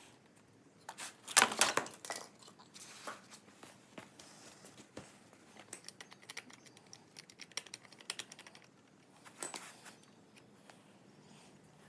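Hand tools and small metal parts being handled: irregular clicks, taps and light rattles, with a louder scraping rasp about a second and a half in and a shorter one near the end.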